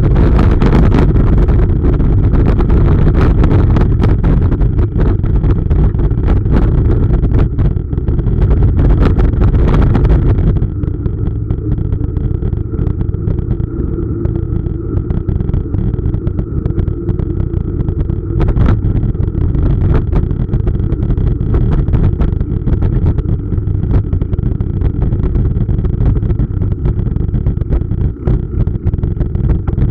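Mountain bike rolling over cobblestones, the bike rattling and knocking constantly. About ten seconds in it runs onto smoother paving: the rattle drops away and a quieter rumble of tyres and wind is left.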